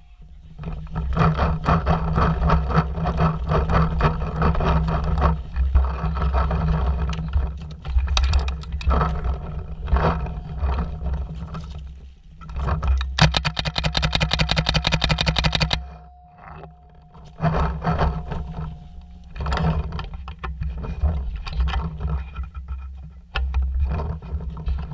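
Paintball marker firing a long rapid burst, roughly a dozen shots a second for nearly three seconds, around the middle. Around it, rumble and irregular knocks and scrapes from the marker-mounted camera being carried and handled.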